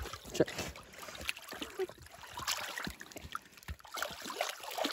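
Shallow lake water splashing and sloshing in small, irregular bursts as fish fillets are swished by hand to rinse them.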